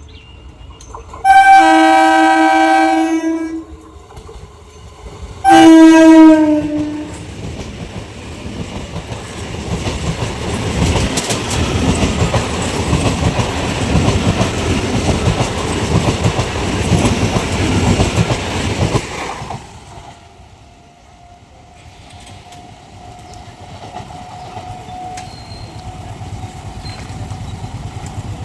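Medha ICF EMU local train sounding its horn in two loud blasts, a long one then a shorter one, then passing with a loud rumble and rail clatter that cuts off suddenly once the train has gone by.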